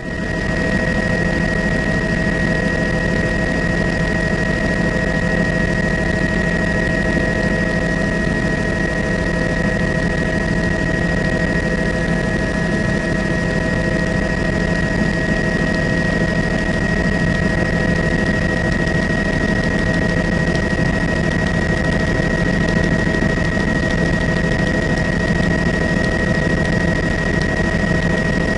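Helicopter's turbine engine and rotor running steadily, heard on board: a constant drone with a steady high whine over it.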